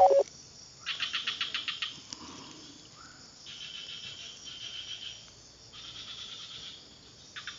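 Small animals calling in the background, with bouts of about a second of quick, evenly spaced chirps alternating with a steadier high buzzing trill. There is a brief, louder squeak at the very start.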